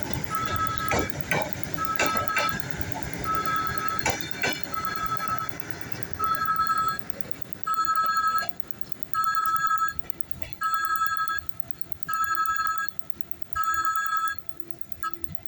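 Electronic warning signal at a railway station sounding a steady high beep, fast at first and then slower with longer beeps about every second and a half. For the first few seconds train wheels clank and rumble under the beeping.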